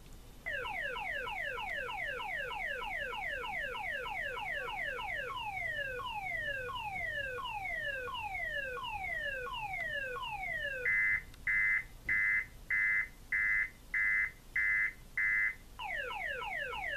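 Six-tone car alarm siren, modified to three tones by cutting its tone jumpers, sounding through its cycle. It goes from fast repeated falling chirps, about seven a second, to slower falling sweeps, to about eight steady on-off beeps, then starts over with the fast chirps near the end.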